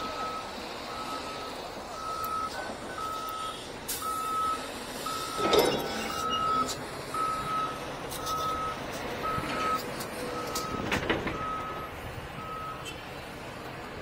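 Backup alarm of a Caterpillar wheel loader beeping as it reverses: a steady high beep about once a second, which stops near the end. Two louder mechanical noises come from the work site, about midway and near the end.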